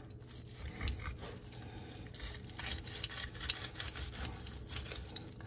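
Faint, irregular soft clicks and scrapes of a serrated knife cutting and prying meat off a rotisserie chicken on a wooden cutting board, over a low steady room hum.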